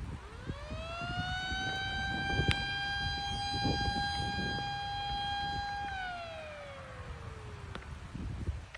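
A siren sounding a single blast: it winds up to a steady high tone within the first second or so, holds it for about four seconds, then winds down with the pitch falling away.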